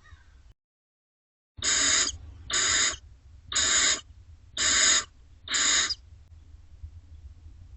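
Barn owlets in a nest box giving five harsh hissing screeches, each about half a second long and about one a second: the food-begging hiss of barn owl nestlings. The sound cuts out briefly just before the first one.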